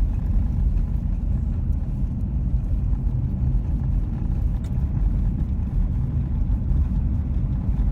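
Steady low road and engine rumble inside the cabin of a Jeep Commander cruising on a country road.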